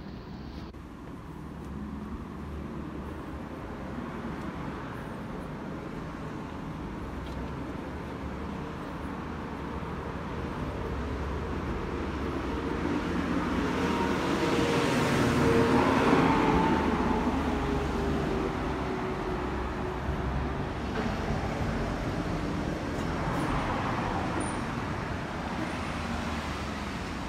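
Street traffic: a road vehicle approaches, passes close just past halfway with a tone that drops slightly in pitch as it goes by, and fades; a second, softer pass follows near the end.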